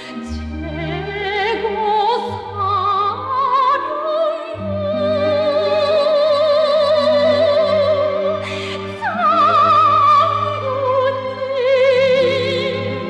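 Operatic singing with a wide vibrato, long held notes over a sustained low instrumental accompaniment.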